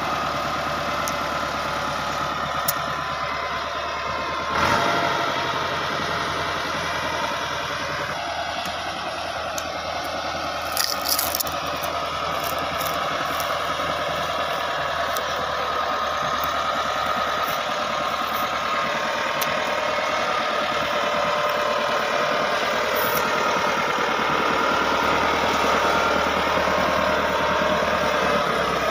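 Massey Ferguson 375 tractor's four-cylinder diesel engine running steadily, with a single thump about five seconds in and a brief rattle around eleven seconds; it grows slightly louder toward the end.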